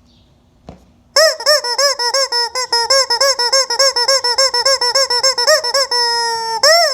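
Rubber squeaky chicken toy squealing, first as a fast warble of short rising-and-falling squeaks, about six a second, then as one long held squeal near the end. A short knock comes just before the squealing starts.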